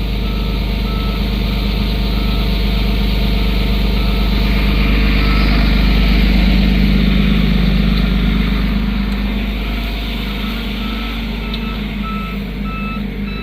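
A truck's reverse alarm beeping steadily over its running engine, which grows louder toward the middle and then eases off. A second, higher-pitched beeper joins near the end.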